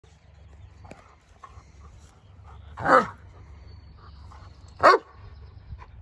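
A Doberman barking twice, two short loud barks about two seconds apart.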